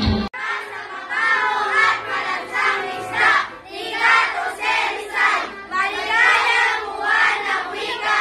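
A group of children's voices chanting together in unison, in loud phrases about once a second, right after the backing music cuts off suddenly at the start.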